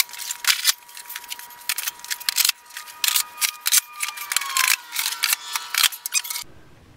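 Plastic organizer bins clattering and knocking as they are pushed into the slots of a plywood bin cabinet: a rapid run of sharp clicks and knocks with a thin steady high tone underneath. It cuts off suddenly near the end.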